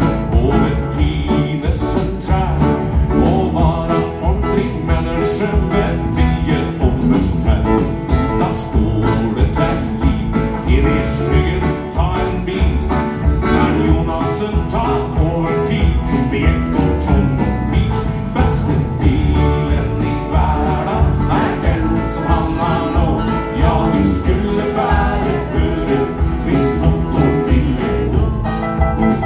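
A live band playing a country-flavoured song: acoustic and electric guitars, bass guitar, keyboard and a drum kit keeping a steady beat, with a man singing.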